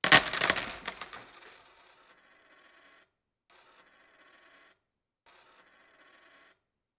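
A sudden jingling, metallic clatter of many small clicks, like coins spilling, dying away over about a second and a half. Three much fainter, evenly spaced bursts of noise follow.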